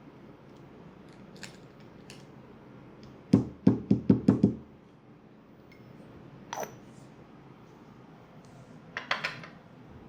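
Percussive massage strokes: a quick run of about six sharp hand slaps, about five a second, a few seconds in. A single click follows later, and a short cluster of crackles near the end.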